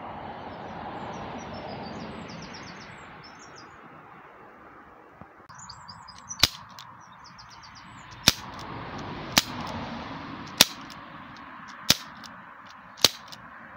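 Umarex Legends S25 CO2 revolver fired six times, each shot a single sharp pop, the first about six seconds in and the rest following a second or so apart.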